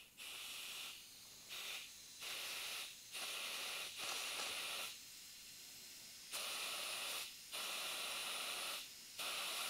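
Compressed air from a rubber-tipped blow gun hissing through a Homelite Z3300 chainsaw carburetor in about eight short bursts, each roughly a second long. Air is now getting through a small passage into the venturi that had been clogged by bad gas.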